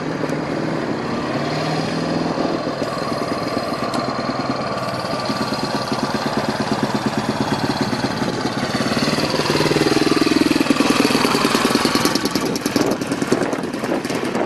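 Speedway motorcycle's single-cylinder methanol-burning engine running as the bike laps the dirt track, with a rapid, even firing beat. It grows louder to a peak about ten seconds in, then eases off slightly.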